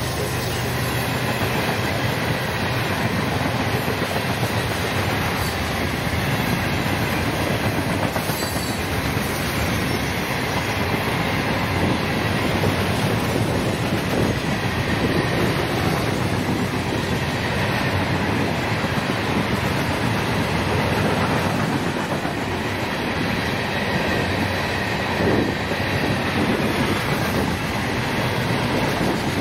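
A train's wheels and cars rolling steadily past on the rails, an unbroken noise with no let-up.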